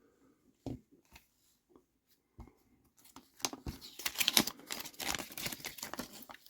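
A couple of light knocks of small parts being handled, then about three seconds of packaging being crinkled and rustled.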